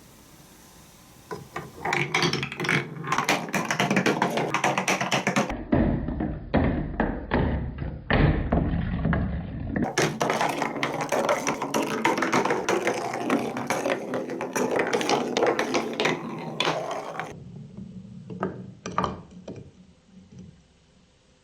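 Many marbles clattering and clicking as they roll down a plastic TrixTrack marble run with wave slopes. A dense rattle starts about a second in, then thins to a few scattered clicks and dies away near the end.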